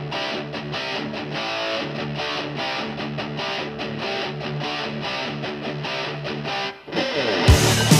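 Background rock music: a repeating distorted electric guitar riff. Near the end it drops out for a moment and comes back louder with heavy drum beats.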